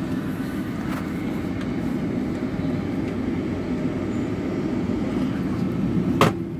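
Steady low rumble inside a jet airliner's cabin while it taxis after landing. A single sharp knock near the end.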